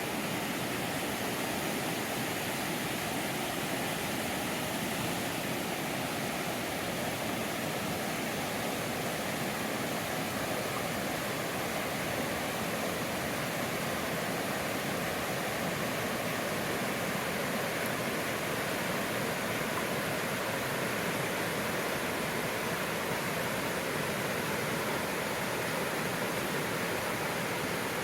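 River water rushing steadily, an even wash of flowing-water noise with no change in level.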